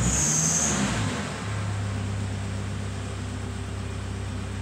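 Nissan D40 Navara's 2.5-litre four-cylinder turbo diesel engine, heard from inside the cab, coming down off a rev of about 2,000 rpm. It settles about a second and a half in to a steady idle. A short high whistle is heard at the start.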